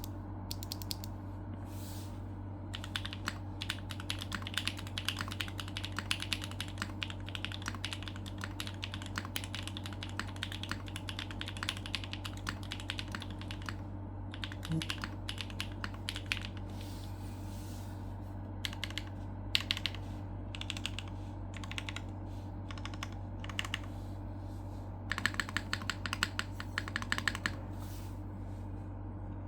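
Typing on a Neo75cu custom mechanical keyboard with a POM plate, cleaned and re-lubed Gateron Summertime V2 switches and GMK keycaps. The key presses come as fast runs of clacks, slow to scattered strokes in the middle and pick up into another quick burst near the end. A steady low hum sits underneath.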